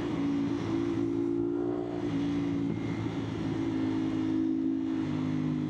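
CFMOTO 450SR parallel-twin engine running at a steady cruising speed, with its note shifting slightly in pitch now and then, over wind and road noise.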